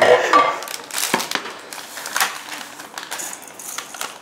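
Pots, pans and utensils being handled on a kitchen hob: scattered clinks and knocks, the sharpest about one and two seconds in.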